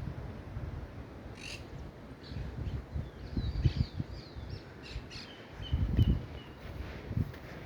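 Birds calling in short chirps and glides, with a quick run of short notes about two thirds of the way through, over gusts of wind rumbling on the microphone.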